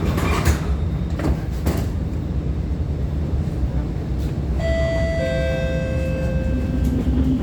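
Steady low rumble inside an Alstom Movia R151 metro train car, with a few clicks near the start. About four and a half seconds in, a two-note falling chime sounds and rings for about a second and a half.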